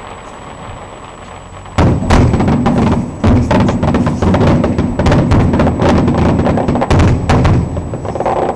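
A rapid barrage of firework bangs: after a quieter start, dozens of sharp reports in quick succession begin about two seconds in and go on until just before the end.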